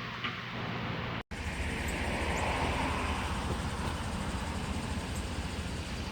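Vehicle on the road: a steady rumble of engine and road noise. It cuts off briefly about a second in and resumes.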